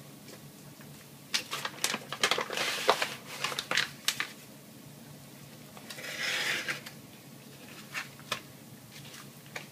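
Sharp knife cutting skin-on salmon fillets into portions on a cutting board: a quick run of clicks and taps as the blade goes through the skin to the board, then a short scraping swish about six seconds in and a few light ticks near the end.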